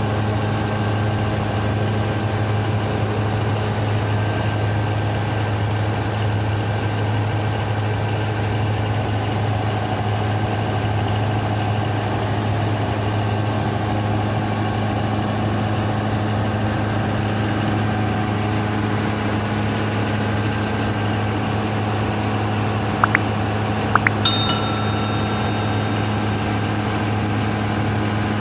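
Denyo DCA610SPM diesel generator running steadily at constant speed with a deep, even hum, its no-start fault traced to a broken magnetic pickup wire. About 23 seconds in come a couple of sharp clicks and a short metallic ring.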